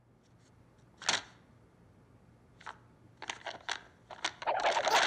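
A few separate clicks, one about a second in and a cluster a little after halfway. Near the end they give way to a loud, fast, continuous clatter.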